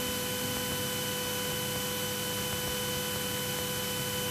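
Steady in-flight cabin noise of a Piper Twin Comanche: an even hiss with a constant hum, unchanging throughout.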